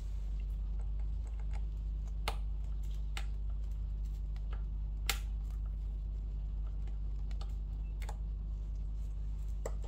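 A small precision screwdriver and metal repair tools clicking and tapping now and then as two tiny screws are taken out of an iPad, over a steady low hum.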